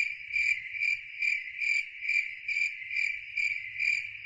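Cricket-chirp sound effect: a steady high-pitched trill that pulses a little more than twice a second, used as the comic 'crickets' for an awkward pause, and cut off suddenly.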